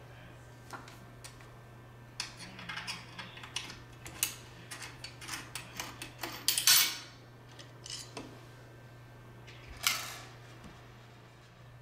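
Metal clicks and clinks of a hex key and the aluminium tamp pad assembly of a label applicator being loosened, shifted and handled. The loudest is a longer clatter about six and a half seconds in, with another short one near the end.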